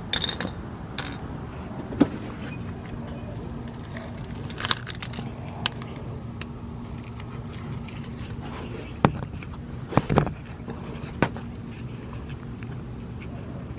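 Scattered metallic clinks and knocks of hand tools and parts being handled, sharpest about two, nine and ten seconds in, over a steady low hum.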